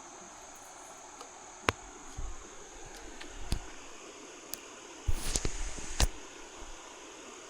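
Steady rushing creek water with a steady high hiss over it, broken by a few sharp clicks and a short cluster of knocks about five to six seconds in.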